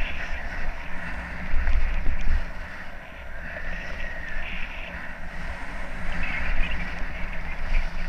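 Wind buffeting the microphone of a helmet-mounted camera in a low rumble, over the hiss and scrape of edges sliding on groomed, packed snow, which rises and falls with the turns.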